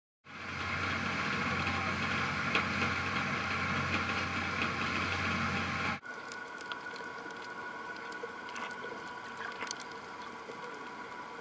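Sound picked up by a camera inside an underwater housing: a steady, muffled rush of noise with a low hum, which switches abruptly about six seconds in to a quieter hiss carrying faint steady tones and scattered sharp clicks.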